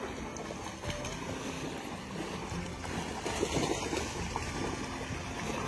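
Dogs swimming in a farm dam: steady, faint water sloshing and splashing.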